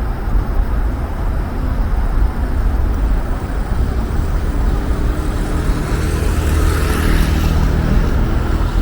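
Steady low rumbling rush of wind on the microphone from a moving bicycle ride, with outdoor road noise underneath.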